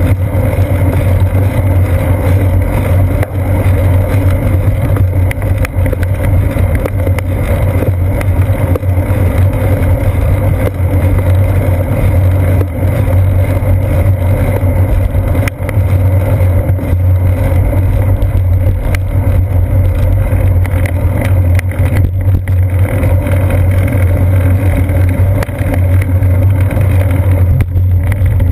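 Loud, steady low drone and rumble of a bicycle rolling along a paved trail: tyre and road vibration carried through a seat-post-mounted GoPro Hero 2 in its housing.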